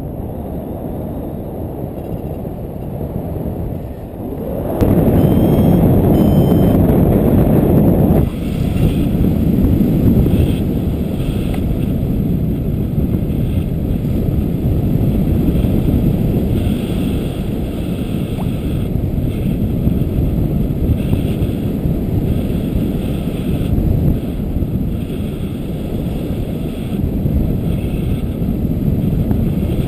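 Airflow rushing over the camera microphone of a paraglider in flight: a loud, steady wind noise that grows louder for a few seconds from about five seconds in. Two short high beeps from the flight variometer sound about six seconds in.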